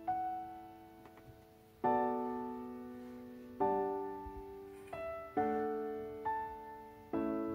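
Slow, gentle background piano music: soft chords struck about every two seconds and left to ring out.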